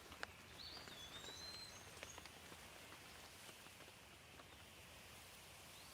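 Faint steady rain with scattered drops ticking, and a brief high chirp about half a second in.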